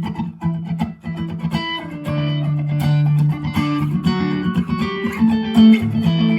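Gear4Music LA Select Strat-type electric guitar played through a delay patch on a Zoom G1Four, into a FoxGear Tweed 55 amp and Vox BC108 speaker cab. It opens with quick picked notes, then moves to longer held, ringing notes about two seconds in.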